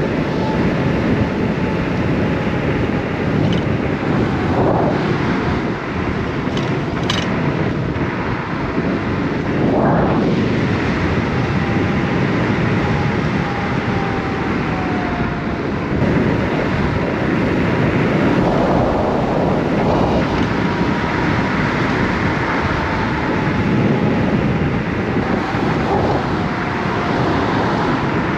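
Wind buffeting the microphone and road noise from a Kaabo Wolf King GT dual-motor electric scooter ridden fast, with a faint motor whine that drifts slightly in pitch. A few brief knocks stand out, around a third of the way in.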